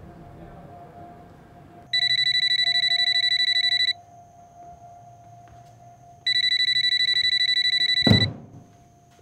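Corded desk telephone ringing twice, each ring a rapid bell trill lasting about two seconds, with a pause of about two seconds between. The second ring stops abruptly with a loud thump as the handset is picked up.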